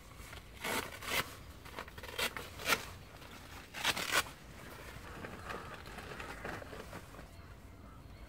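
Fishing and camping gear being handled at a bivvy shelter: a run of sharp crinkling and scraping noises through the first four seconds or so, then softer rustling.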